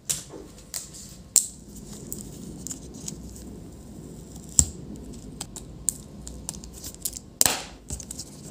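Hands handling a laptop LCD panel and its display cable connector: scattered small clicks and taps of plastic and metal, with a longer scraping rustle about seven seconds in.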